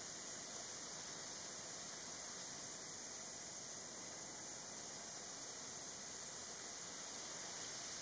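Night insect chorus: a steady, high, continuous trill, with faint higher chirps repeating through it.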